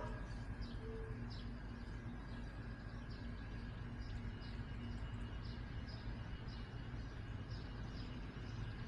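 A small bird chirping over and over, short high chirps about twice a second, over a steady low background hum.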